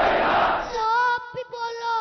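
Call-and-response rally chant: the crowd shouts back a slogan in unison, then about a second in a child's high voice, amplified through a microphone, calls out the next line in long drawn-out notes.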